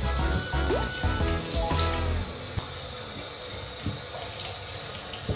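Water running from a bathtub faucet in a thin steady stream, splashing into the tub, with a few sharp splashes as hands break the stream. Music plays over the first two seconds.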